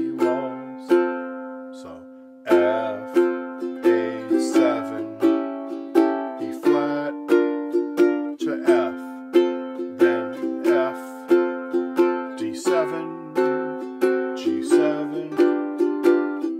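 Ukulele strummed in waltz time, a steady run of chord strokes with changing chords. About a second in, one chord is left to ring and fade before the strumming picks up again.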